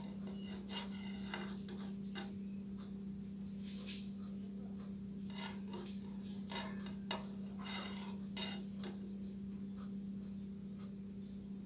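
Light, irregular clicks and taps of small metal parts as component leads and a soldering iron tip are worked against the pins of an amplifier IC, over a steady low hum.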